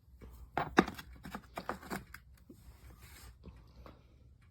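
A quick run of sharp clicks and knocks, loudest just under a second in, then a few lighter taps: impact sockets and their case being handled.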